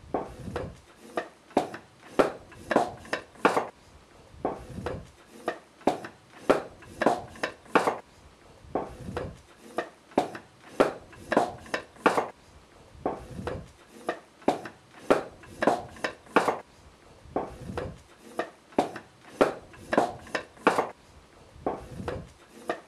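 A knife cutting thin wooden strips into skewers against a wooden bench. The sharp wooden clicks and knocks come about two or three a second, in runs every four seconds or so, each run opening with a low thump.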